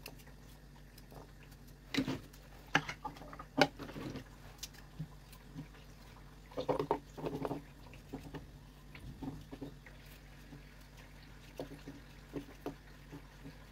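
Vegetable prep: a small knife cutting carrot and potato held in the hand, with irregular light clicks and taps as pieces drop into a clear measuring jug and knock against it. The taps come in two busier clusters, one about two seconds in and one about seven seconds in, and are sparse in between.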